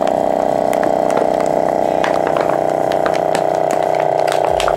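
CASO FastVac 500 vacuum sealer's pump running steadily, drawing the air out of a bag holding an empty aluminium drink can on its moist setting with gentle vacuum strength. Scattered crackles and clicks come through as the plastic bag tightens and the can starts to give.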